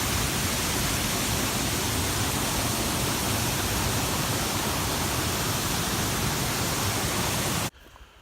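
Waterfall rushing, a steady dense noise that cuts off suddenly near the end.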